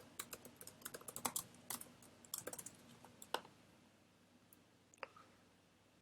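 Typing on a computer keyboard: a quick run of keystrokes for the first three and a half seconds, then a couple of single taps.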